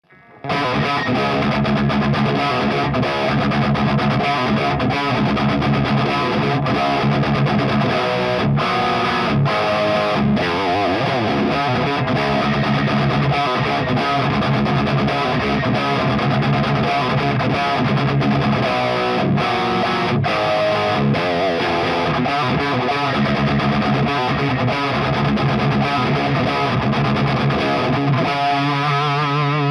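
Electric guitar with its stock Wilkinson pickups, played through a distorted amp in a continuous riff-based jam that starts about half a second in. Near the end the notes waver with vibrato.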